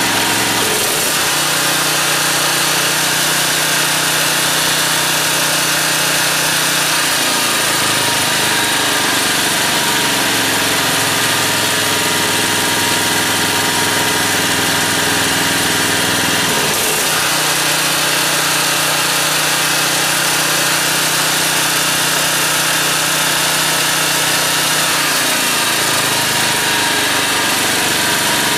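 Generac 4000XL portable generator engine running, its note shifting twice as a plugged-in electric tool is switched on and off as a test load: the idle control brings the engine up to speed under load and lets it drop back to low idle. The engine picks up the load without hesitating, which is the sign that the low idle is now set about right.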